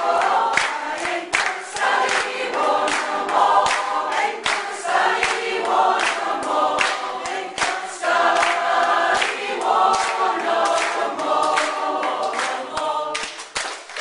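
A community choir of many voices singing a song together, with hands clapping along to the beat at about two to three claps a second. The song ends just before the close.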